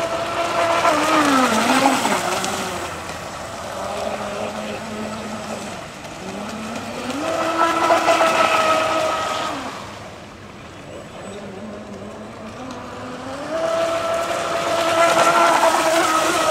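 Electric motor of a radio-controlled model boat whining at speed, rising in pitch and loudness, holding, then dropping away; this happens three times as the boat makes runs.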